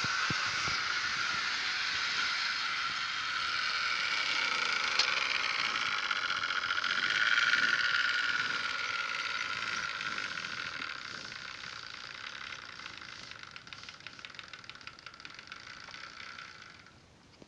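Model train (a CC 40101 locomotive with its wagons) running on the track: a steady whirring hum of the motor and wheels on the rails. It is loudest about halfway through, then fades as the train moves away, with light clicking over the rail joints, and cuts off just before the end.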